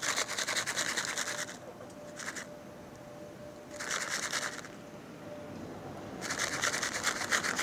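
Plastic bag rustling and crinkling as it is handled, in four bursts: about a second and a half at the start, a short one after two seconds, one around four seconds, and a longer one from about six seconds.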